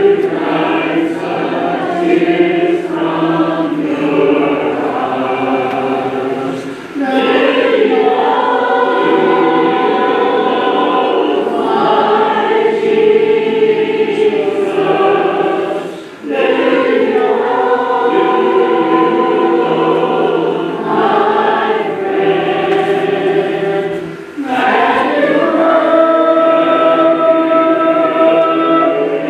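Church congregation singing a hymn a cappella, many voices together, with short breaths between lines about every eight seconds.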